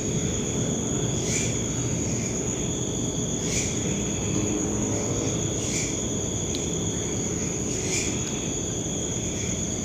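Insects trilling steadily in a high, even tone that swells about every two seconds, over a low steady hiss.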